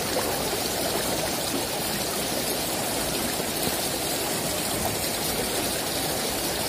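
Shallow river flowing steadily: a continuous rush of moving water.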